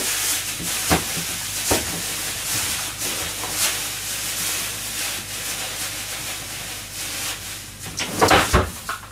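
Off-camera kitchen work: a steady hiss with a few sharp knocks, and a louder burst of clattering near the end.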